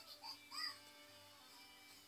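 Quiet background music with long held notes, and two short high mews from an American Shorthair kitten in the first second.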